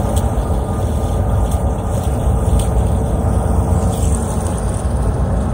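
Steady road and engine noise inside a moving car's cabin, with a few faint ticks.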